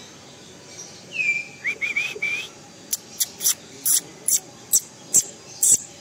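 Caged birds calling: a few short whistled notes about a second in, then a run of sharp, short calls about twice a second.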